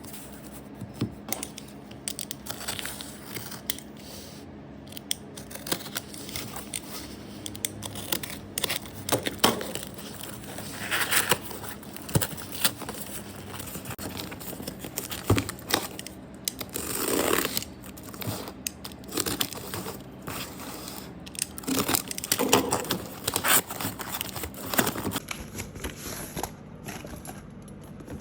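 Product packaging being opened and handled by hand: irregular tearing, crinkling and rustling of cardboard and plastic, with small clicks and knocks.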